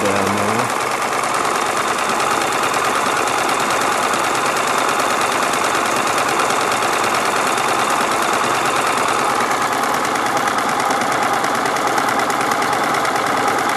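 Gold Dancer shaker table running dry on battery power, shaking dirt through a 100-mesh screen in a bucket classifier: a steady, fast mechanical rattle.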